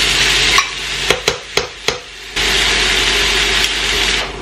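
Garlic and onion sizzling in a wok as canned corned beef is spooned in. A few sharp taps of a metal spoon against the bowl come about a second in while the sizzling briefly drops away; then it returns as the meat is stirred with a spatula.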